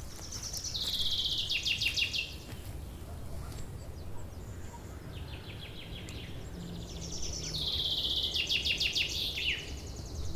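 Nightingale singing: phrases of fast repeated high notes and trills. One loud phrase comes at the start, a softer one around the middle, and another loud phrase in the second half.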